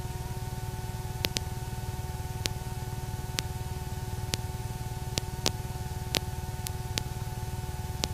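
Steady electrical hum and hiss from a light aircraft's intercom audio feed, with a few fixed whining tones and a faint click every second or so; the engine comes through only as a dull low rumble.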